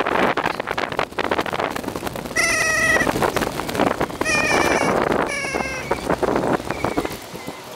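Bicycle ride heard through a handlebar-mounted camera and played at four times speed: constant wind buffeting and rattling, broken by three short, squeaky, high-pitched wavering calls about two and a half, four and five and a half seconds in.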